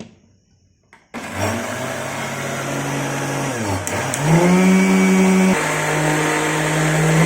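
Electric kitchen mixer grinder (mixie) running, grinding soaked thoothuvalai leaves with water into a paste. The motor starts about a second in, sags in pitch briefly around four seconds in, then runs louder and steady.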